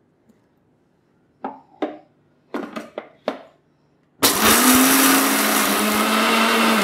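Electric mixer grinder with a steel jar grinding dry lentils into powder. A few sharp knocks as the jar and lid are handled and seated on the base, then about four seconds in the motor starts and runs at a steady high pitch.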